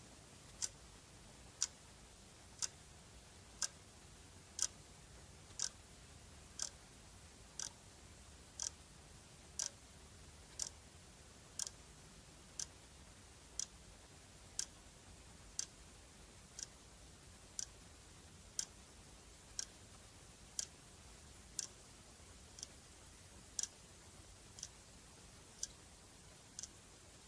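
Clock ticking steadily, one sharp tick a second.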